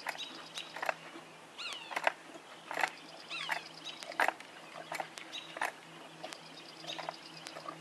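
A horse working its muzzle in a plastic bucket, making a string of short knocks and scrapes about one every half second to second. Birds chirp briefly in the background over a steady low hum.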